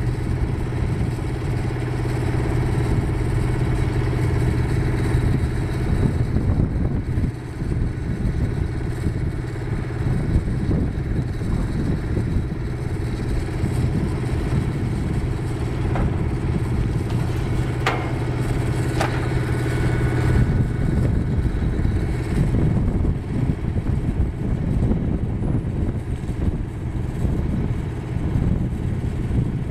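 Diesel engine of a mobile crane running steadily as it hoists a steel roof truss, with its even hum changing about two-thirds through. A few sharp knocks sound shortly before that.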